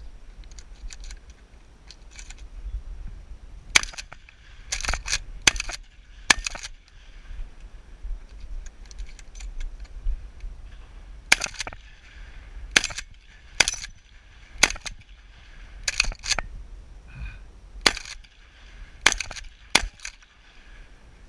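Shotgun firing more than a dozen sharp shots in quick clusters of two to four, with pauses between them. Fainter clicks fall in the pauses.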